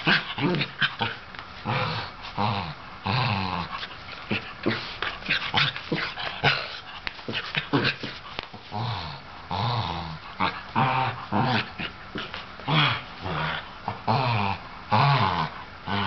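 Sable Shetland Sheepdog making play noises at a cat: a stream of short, pitched growls and grumbles in quick, irregular bursts.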